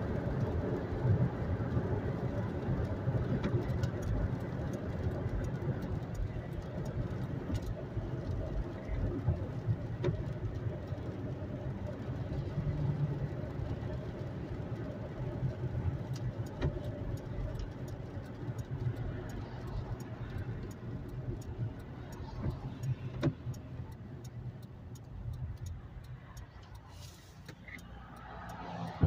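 Road noise inside a moving car's cabin: a steady low rumble of tyres and engine at highway speed, easing off over the last several seconds as the car slows down.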